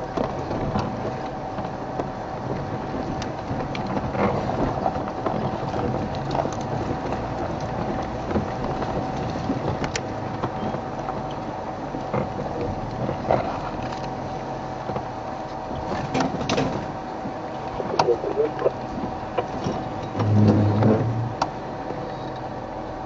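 Safari game-drive vehicle's engine running as it drives slowly off-road through bush, with a steady low rumble and a constant whine. Scattered knocks and rattles come from the vehicle jolting over rough ground.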